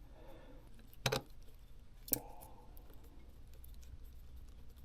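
Small clicks and taps from fitting a small internal bracket into a phone during a repair, with two sharper clicks about one and two seconds in.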